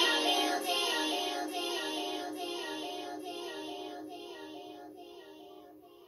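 Children's cartoon song with singing and a steady beat at its close, fading out steadily to near silence.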